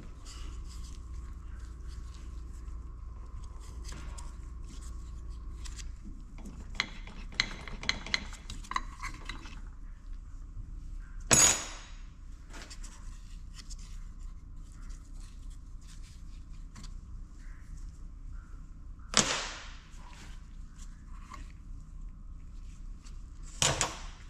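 Metal parts of an old Detroit Diesel governor being handled and worked on a bench: scattered light clinks and taps, and three sharp metallic knocks with a brief ring, about 11 seconds in, about 19 seconds in and near the end, over a steady low hum.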